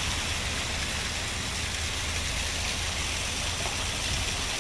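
Muddy rainwater running off layered sandstone ledges in thin cascades, a steady rushing splash, with a low rumble underneath.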